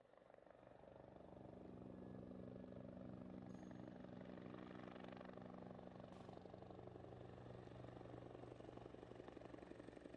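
Steady low engine drone, fading in at the start and then holding even, with a slight regular pulsing.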